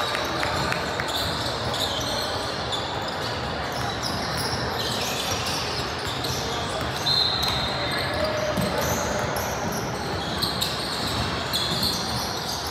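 Basketballs bouncing on a hardwood gym floor, with voices and short high squeaks echoing around a large hall.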